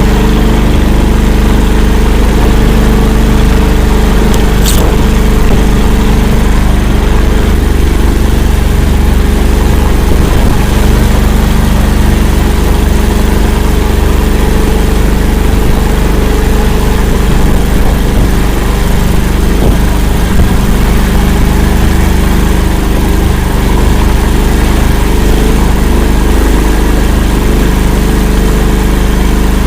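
Engine of an 'Akula' all-terrain swamp vehicle running steadily, a loud deep drone that holds its pitch, with one short click about five seconds in.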